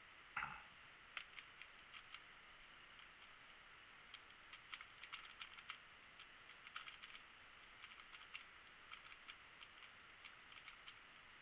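Plastic 3x3 speedcube being turned one-handed in a fast solve: faint, quick runs of light clicking turns broken by short pauses. There is a single sharper knock about half a second in.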